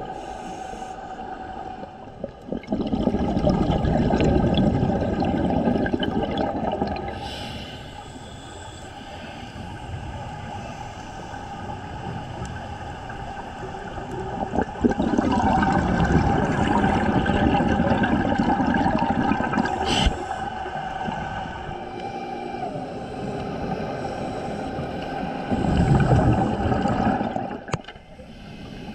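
Scuba diver breathing through a regulator underwater: three long exhalations, each a loud rush of bubbles lasting a few seconds, with quieter stretches of inhaling between them.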